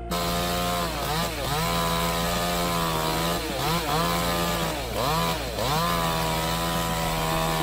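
Two-stroke chainsaw running at high revs while cutting, its pitch dipping briefly and recovering several times as the chain bites into the wood.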